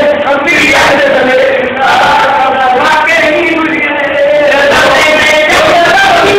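Men's voices singing a Punjabi-style song, loud and continuous, phrase after phrase with short breaks between them.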